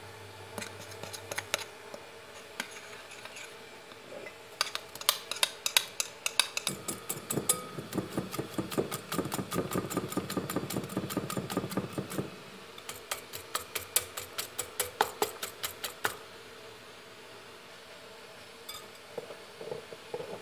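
A metal spoon and then a wire whisk clicking against glass bowls while mixing yogurt, soda, eggs and sugar. A few scattered taps give way to a long run of rapid whisking strokes. After a short pause there is a second run, then a few last taps near the end.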